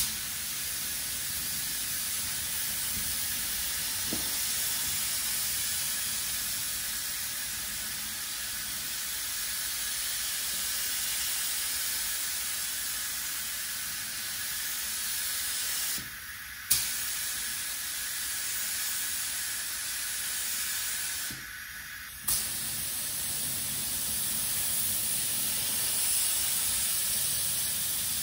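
Compressed-air spray gun hissing steadily while spraying primer onto a car bonnet. The trigger is released twice for about a second, just past halfway and again about three quarters through, and each time the spray comes back with a sharp burst of hiss.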